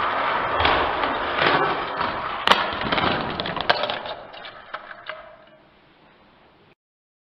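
Slowed-down rolling of a die-cast toy car's plastic wheels along plastic Hot Wheels track and round a banked curve, a continuous rattling rumble with a few sharp clacks, the loudest about two and a half seconds in. It fades out over the last couple of seconds and then cuts off.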